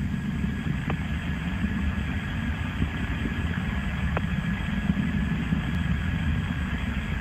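Distant Soyuz-FG rocket climbing under its first-stage engines, heard from the ground as a steady low rumble.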